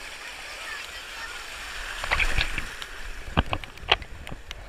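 Rushing water and a rider sliding down a water slide chute, a steady noise that grows louder about two seconds in. From then on come several sharp knocks and splashes, the strongest about three and a half and four seconds in.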